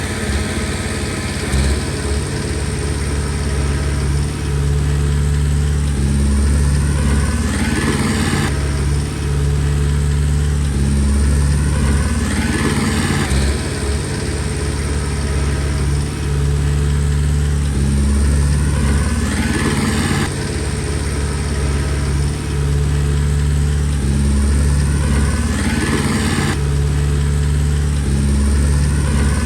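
Komatsu D20P bulldozer's diesel engine running steadily, its note and load changing in a repeating cycle about every six or seven seconds, with a rising whine building toward each change.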